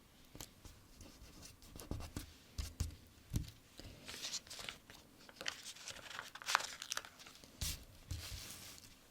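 A sticker peeled off its backing sheet and pressed and smoothed onto a paper sticker-book page: a run of irregular crackles, peeling rasps and light taps.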